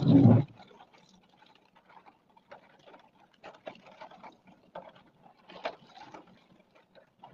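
Windshield wiper blade finishing a sweep across the wet glass in the first half second, then scattered faint taps of raindrops on the windshield, heard from inside the car's cabin.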